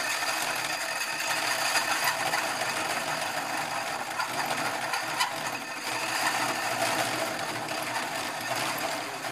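Power drill running a hole saw that is cutting through a metal panel: a steady grinding hiss with a whine.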